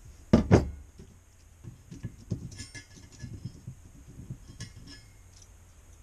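Steel sprockets and spacers of a Shimano Deore 12-speed mountain-bike cassette knocking and clinking together as they are handled and taken apart. There are two loud knocks about half a second in, then a run of lighter clinks.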